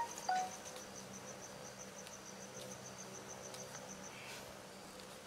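An insect chirping in a fast, even, high-pitched pulse, about seven pulses a second, which stops about four seconds in. A few faint light taps sound in the background.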